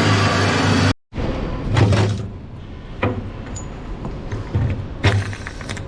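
Electric drill cutting a 70 mm hole through a steel boat hull, a steady motor whine that cuts off abruptly about a second in. A few sharp knocks follow.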